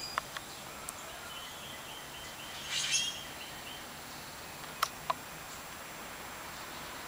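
Outdoor background with faint bird chirping: a high pulsing chirp over about two seconds with a brief rustling burst in the middle, and a few sharp clicks, two of them close together about five seconds in.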